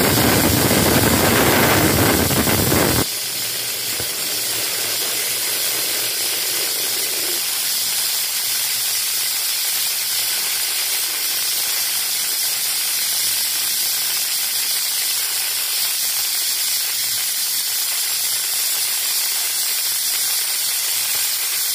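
Aluminium pressure cooker's whistle weight venting steam at full pressure: a loud rushing hiss for about three seconds, then a steady, thinner hiss that keeps going. It is the cooker's whistle going off as it reaches pressure on a high flame.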